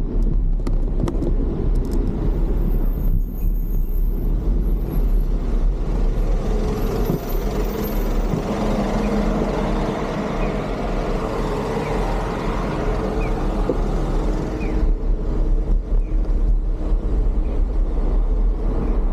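Wind rumbling on an action camera's built-in microphone while cycling, mixed with road traffic noise. A louder spell of traffic noise builds through the middle and stops suddenly about fifteen seconds in.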